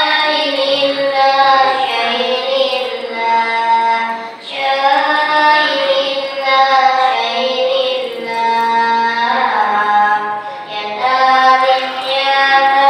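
A high solo voice singing shalawat, the Islamic devotional song praising the Prophet, in long held and ornamented melodic phrases, pausing briefly for breath twice.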